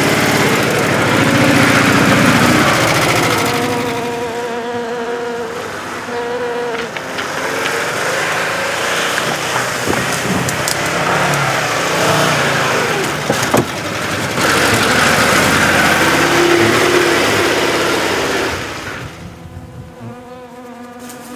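Vehicle engine running while driving over a rough, unpaved road. The loudness rises and falls, and it quietens near the end.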